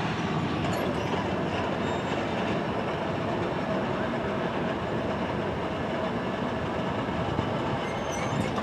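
Union Pacific local freight train rolling on the rails, a steady rumble of wheels on track.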